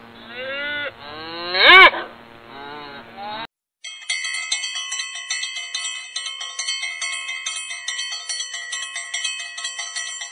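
A cow mooing, with one loud drawn-out moo about two seconds in and fainter lowing around it. After a brief silence about four seconds in, a fast, bright melody of bell-like chiming tones takes over.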